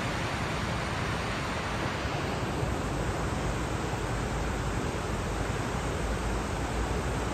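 Steady rushing of a fast, swollen river running through rapids.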